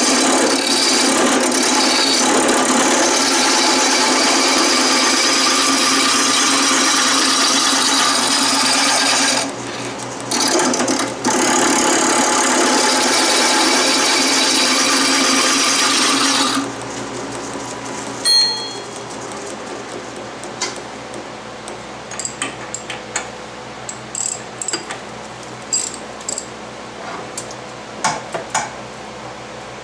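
Turning tool cutting a spinning wooden handle blank on a wood lathe: a loud, steady hiss of shavings coming off, with two short breaks, stopping a little over halfway. The lathe then runs on quieter, with scattered light taps near the end.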